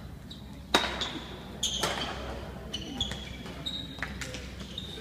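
Badminton rally in a sports hall. There are sharp racket hits on the shuttlecock, the loudest about a second in, and short high squeaks of players' shoes on the court floor several times.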